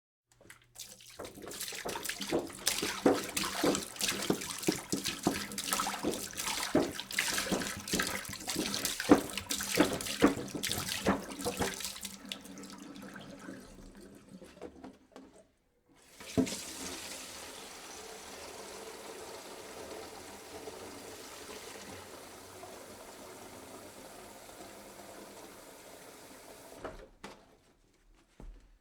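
Water pouring into a jug, splashing and gurgling loudly at first, then trailing off. After a brief silence about halfway through it starts again abruptly as a steadier, quieter stream.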